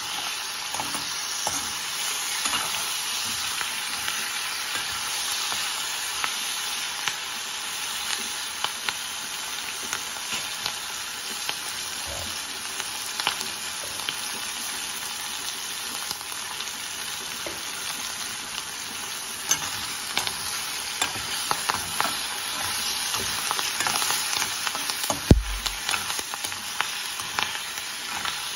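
Vegetable chunks and curry leaves sizzling in oil in a kadai while a metal spatula scrapes and clicks against the pan as they are stirred. The clicks come thicker in the second half, and one loud knock comes near the end.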